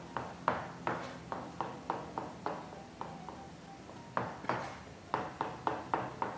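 Chef's knife chopping rapidly on a plastic cutting board, dicing food finely: quick, regular knocks about three a second, with a short pause about three seconds in.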